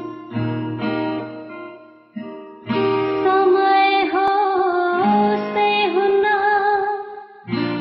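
Acoustic guitar strummed in a few separate chords, then from about three seconds in a woman sings over the steady strumming.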